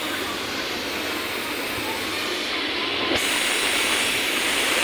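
Steady rushing background noise of a garment workshop, with no distinct machine rhythm.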